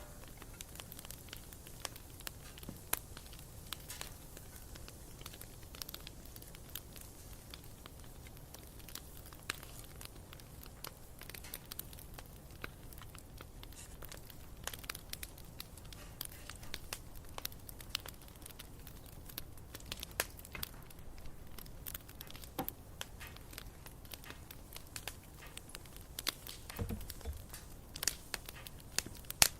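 Wood campfire crackling: irregular sharp snaps and pops over a steady low rumble, with a louder pop near the end.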